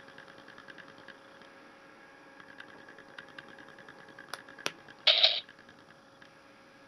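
A small tactile push button clicks twice, pressed and released, then the M41A pulse rifle light and sound kit plays a short electronic sound effect through its speaker, about a third of a second long, as its round counter lights up.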